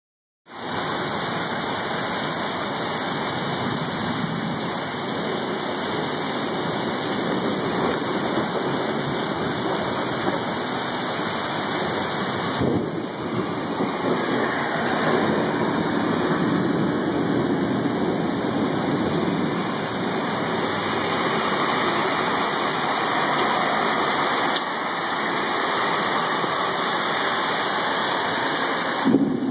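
Heavy rain pouring down steadily in a thunderstorm downpour.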